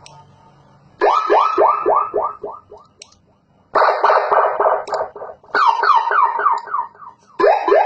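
A 12-tone electronic siren module in echo mode, sounding through a horn loudspeaker and stepping through its tones. A run of rapid rising whoops, about four a second, fades away like echoes. It is followed by a steady pulsing warble, then a run of falling sweeps, and rising whoops start again near the end.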